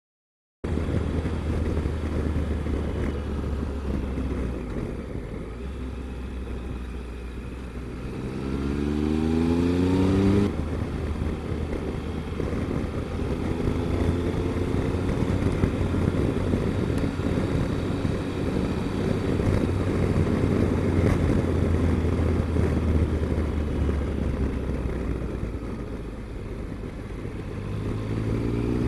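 Triumph Explorer motorcycle's three-cylinder engine running under way, heard through steady wind rush. About eight seconds in the revs climb as it accelerates, then drop off sharply at about ten seconds. Near the end the revs climb again.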